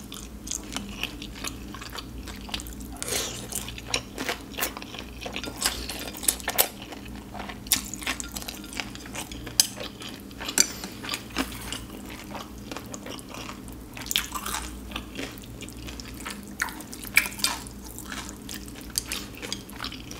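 Close-miked eating of spicy ramen noodles and dumplings: chewing and wet mouth sounds, with many sharp, irregular clicks and clinks of chopsticks against ceramic bowls.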